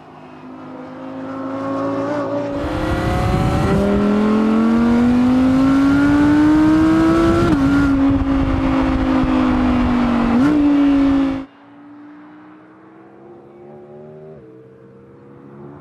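Audi R8 V10 GT's naturally aspirated 5.2-litre V10 accelerating hard, its pitch climbing with brief dips at gear changes. About eleven seconds in the loud sound cuts off abruptly, leaving a quieter engine note.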